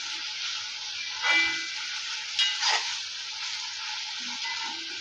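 Potato wedges sizzling in oil in a kadai as a spatula stirs them, the added water now cooked off so they fry dry. Two louder scrapes of the spatula against the pan, about a second in and again around two and a half seconds in.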